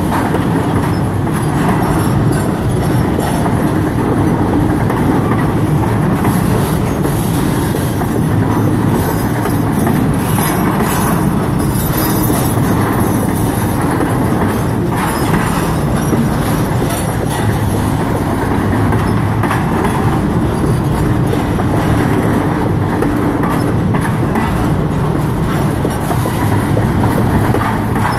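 CSX freight train's double-stack well cars rolling past close by: a loud, steady rumble and clatter of steel wheels on the rails, with occasional clicks as the wheels cross rail joints.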